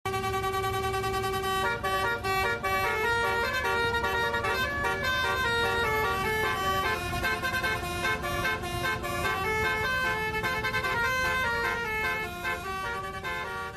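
Bus telolet horn, a multi-trumpet musical horn, playing a quick stepping melody of several notes sounded together over a low engine rumble, fading out near the end.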